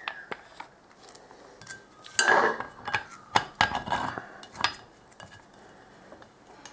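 Hard 3D-printed plastic parts of a coaxial shooting rest clicking and knocking as the rest is screwed onto its base and handled, with a louder clatter about two seconds in and a run of sharp clicks after it.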